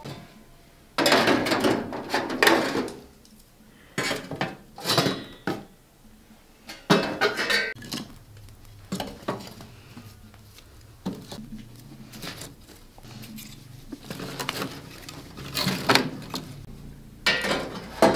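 Metal clanking and scraping at a wood-burning stove as its top lid is worked with a tool and sticks of firewood are fed in, in irregular bursts of a second or two.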